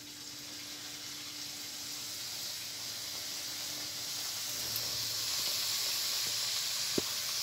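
Triangles of rolled maida dough deep-frying in hot oil in a pan, a steady sizzle that grows louder as more pieces are slipped in.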